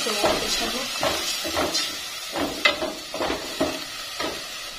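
Wooden spatula stirring and scraping a thick herb paste frying in an aluminium pot, in about a dozen short, uneven strokes over a faint sizzle.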